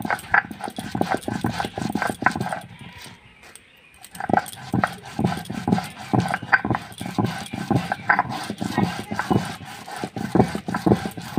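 Stone roller grinding poppy seeds on a stone slab (shil-nora): repeated rubbing and knocking strokes of stone on stone, about two to three a second, with a short pause about three seconds in.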